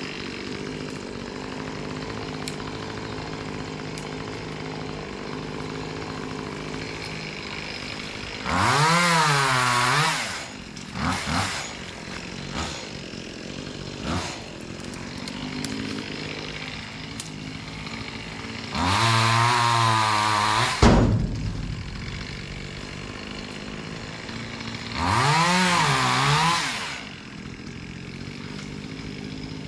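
Chainsaw revved hard three times, each burst rising and falling in pitch for a second or two, with an engine idling steadily between them. A sharp knock comes just after the second burst.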